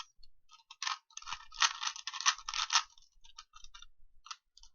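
Plastic 3x3 Rubik's Cube being turned quickly by hand: clusters of rapid clicking and scraping as the layers rotate, densest in the middle, then thinning to a few single clicks near the end.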